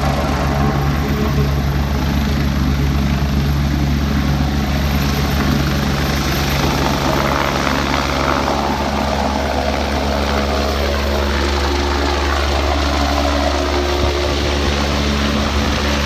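Medical helicopter's rotor and turbine engine running loud and steady as it lifts off the helipad and flies away. The pitch shifts about halfway through as it climbs past.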